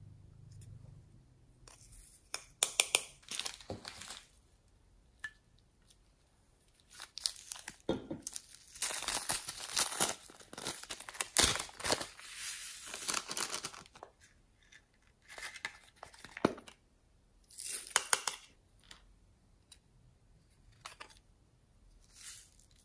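Small clear plastic bags of glitter and sequins crinkling as they are handled, opened and squeezed empty over a dish of slime. The crinkling comes in several bursts with quiet gaps between, the longest in the middle.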